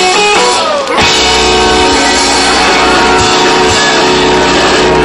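Live rock band of electric guitars, bass and drums hitting a chord about a second in and letting it ring, with a few drum hits over it: the held closing chord of a rock-and-roll song.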